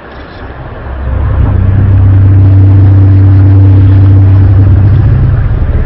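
Loud, low-pitched droning groan of the so-called strange sound from the sky. It swells up about a second in and then holds steady, with a second, higher tone above it for about two seconds.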